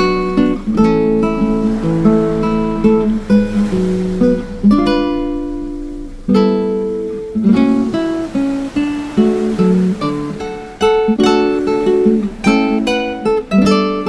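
Background music: an acoustic guitar playing plucked notes and chords, each note striking and fading.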